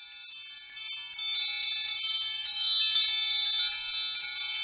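Chimes ringing: many high, bell-like notes struck in quick, irregular succession and ringing over one another, growing louder about a second in.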